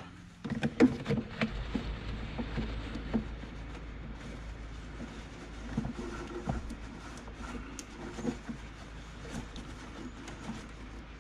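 Rustling of a paper towel and light knocks and scrapes from hands moving a rubber air-intake duct under a car's hood, over a steady low rumble that sets in about a second and a half in.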